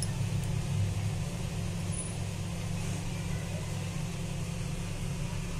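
A steady low hum with a faint even hiss above it.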